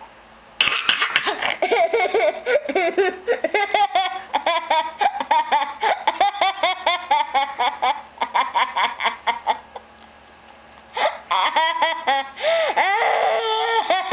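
Young child laughing hysterically, a fast run of high laughs that breaks off for about a second two-thirds of the way through, then starts again.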